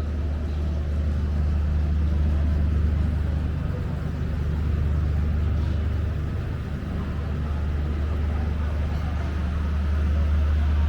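Steady low rumble of city street noise with traffic, an even hum of sound that stays at much the same level throughout.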